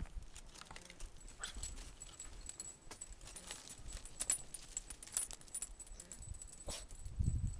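Faint sounds of a small terrier puppy (Cairn x Jack Russell), with scattered light clicks and rustles, and a low rumble near the end.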